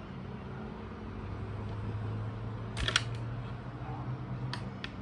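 Sharp plastic clicks and cracks as a pen is broken apart by hand to get at its ink: a quick cluster about three seconds in, then two single clicks near the end, over a low steady hum.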